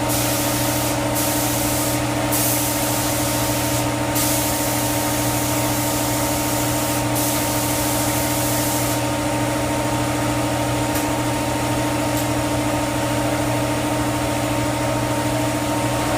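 Spray gun laying down epoxy primer: a loud hiss of air and paint, cut off briefly several times when the trigger is let go and weaker after about nine seconds, over a steady hum. The gun is sputtering badly, which the painter puts down to a missing air cap and part.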